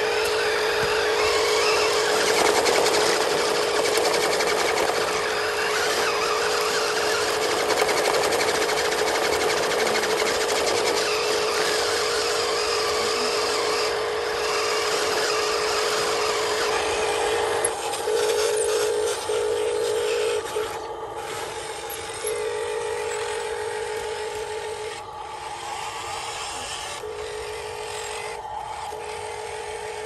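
Electric drive motors and gearboxes of two Huina RC dump trucks (1573 and 1582) whining under load as they push against each other nose to nose, with a scratchy scrubbing of tyres on gravelly dirt. About two-thirds of the way through the whine starts coming and going in short bursts, and it gets quieter.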